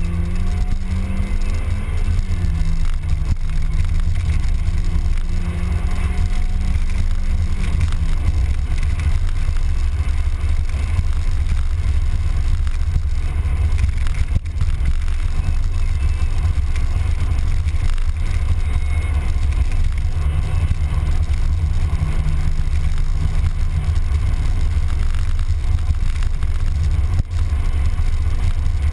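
Mazda Miata's four-cylinder engine and road noise while driving: a steady deep rumble throughout. Over it an engine tone climbs, drops about two seconds in, holds until about eight seconds in, and comes back faintly around twenty seconds in.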